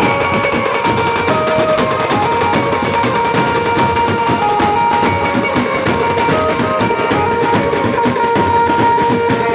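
Wedding band of large stick-beaten bass drums and small tasa drums playing a fast, dense rhythm, with a held melody line changing note now and then over the drumming.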